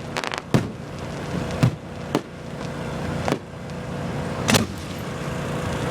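Fireworks display: a short crackle, then about five sharp bangs of shells bursting a second or so apart over a steady rushing rumble.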